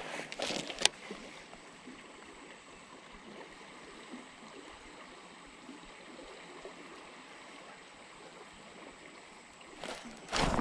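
Creek water running steadily, with a sharp click about a second in and a sudden burst of louder noise near the end.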